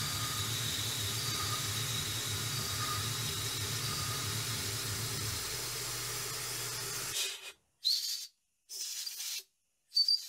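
Small CNC mill's spindle running as an M8 thread mill cuts threads in a cast aluminium part, under a steady hiss of coolant mist with a low hum; both stop about seven seconds in. Then three short blasts of compressed air from a blow gun clearing chips from the threaded holes.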